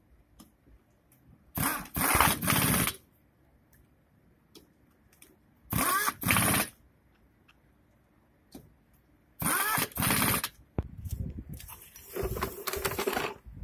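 Pneumatic impact wrench running the wheel nuts onto a car wheel in short bursts, mostly two at a time with pauses between, some starting with a rising whine. A longer, steadier burst comes near the end.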